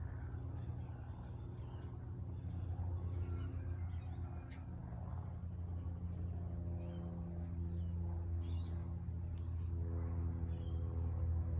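Steady low engine hum that grows louder and fuller over the second half, with short high bird chirps scattered above it.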